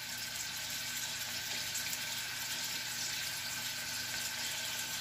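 Steady hiss of sliced carrots simmering in a stainless saucepan on an electric glass-top stove, with a faint steady hum underneath.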